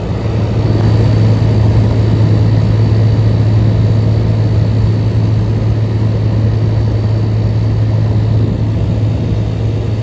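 1977 GE Superthrust window air conditioner running on high cool: a steady low hum from its GE rotary compressor under the even rush of the fan. It grows louder in the first second, then holds steady.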